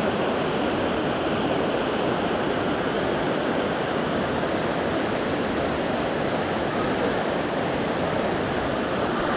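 Bridal Veil Falls' water pouring into its pool: a steady, unbroken rush of falling water.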